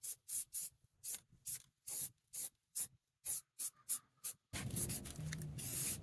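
Aerosol spray paint can hissing in short, quick bursts, about two to three a second, as black semi-gloss paint goes onto a cast iron bench frame. About four and a half seconds in, the bursts give way to a steadier hiss over a low background rumble.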